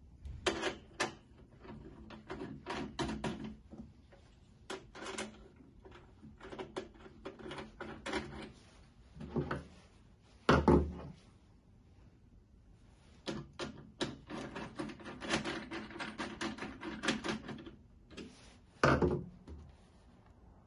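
Clicks, scrapes and knocks as threaded feet are screwed into the base of a stainless steel flat-top griddle while the unit is held tilted and handled. Two louder thumps stand out, about ten seconds in and near the end.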